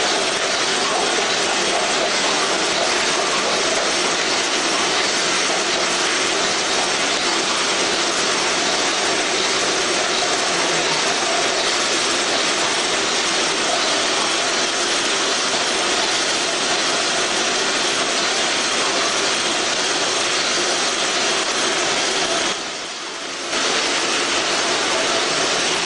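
OPP film labelling machine and its jar conveyor running: a steady mechanical hum and rush that dips briefly about 23 seconds in.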